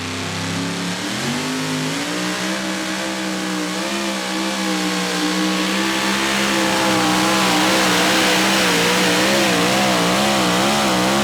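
Mini rod pulling tractor's engine at full throttle during a pull. Its pitch climbs about a second in and holds, then wavers up and down over the last few seconds before it cuts off abruptly at the very end as the run is shut down.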